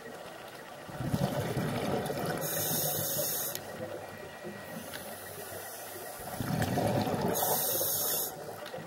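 A scuba diver breathing through a regulator, heard underwater: two breath cycles, each a bubbling rush of air that ends in a brief high hiss, the first about a second in and the second about six seconds in.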